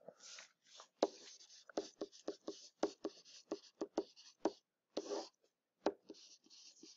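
Handwriting with a pen tip: a rapid series of light taps and short scratchy strokes as an equation is written out.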